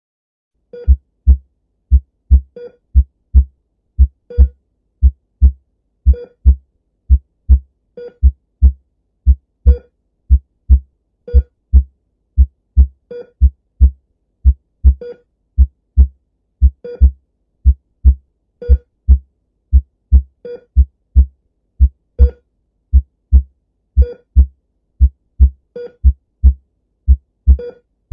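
Heartbeat sound effect: steady low lub-dub double thumps, about one beat a second. An ECG heart-monitor beep, short and electronic, comes about every two seconds.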